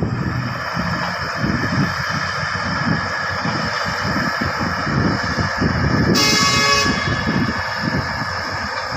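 Heavy mining machinery running steadily, with one short horn blast of under a second about six seconds in.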